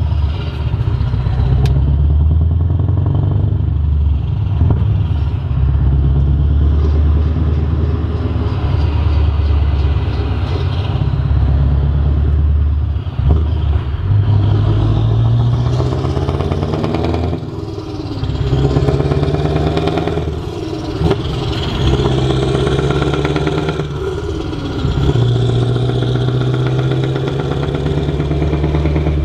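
Scania R580's V8 diesel running through an open-pipe exhaust, heard loud from inside the cab while the truck pulls away and accelerates. The note dips and climbs again several times with the gear changes.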